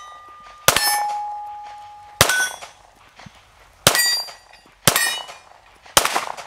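Five 9mm pistol shots, unevenly spaced about a second or a second and a half apart. Each is followed by the ringing clang of a steel target being hit, and after the first the ring hangs on for more than a second.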